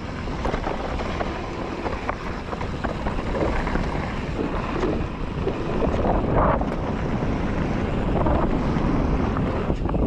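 Mountain bike riding down a dirt trail: a steady rush of wind on the microphone and tyre rumble, with frequent short clatters and knocks from the bike over rough ground.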